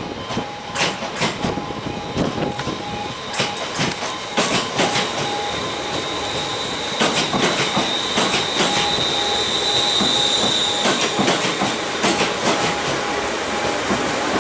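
Six-car ScotRail Class 380 (Siemens Desiro) electric train running into the station, its wheels clicking over the rail joints. A high, steady squeal rises over the wheel noise for several seconds in the middle.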